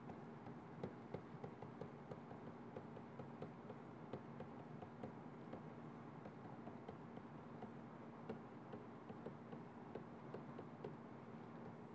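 Faint, irregular clicks and taps of a stylus writing block capitals on a tablet screen, a few per second, over a steady low hum.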